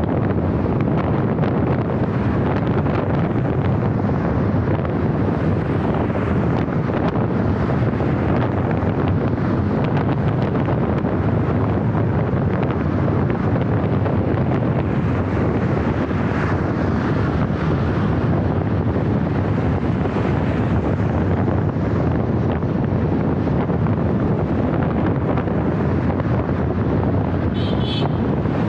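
Wind buffeting the microphone of a camera on a moving car, over steady road and traffic noise.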